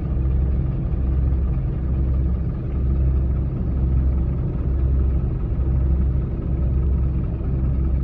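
A vehicle engine running steadily: a deep rumble that swells and eases about once a second.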